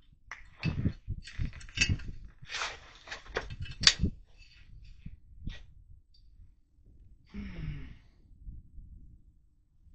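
Handling noise of a scoped AR-15 rifle being brought down and settled onto a concrete shooting bench: a run of clicks and knocks with clothing rustle in the first four seconds. Then it goes mostly quiet, with one short rustle about three-quarters of the way through.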